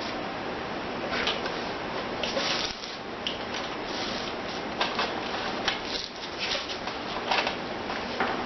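TIG welder arc on thin sheet steel, set at about 20 amps: a steady hiss with irregular crackles and ticks.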